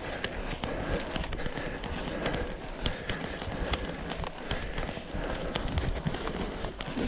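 Mountain bike riding over rough off-road ground: a steady rumble of tyres on dirt and stones, with many short clicks and knocks from the bike rattling over the bumps.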